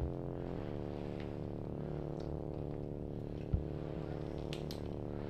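A steady low hum with many overtones, unchanging throughout, with a single dull knock about three and a half seconds in and a few faint clicks near the end.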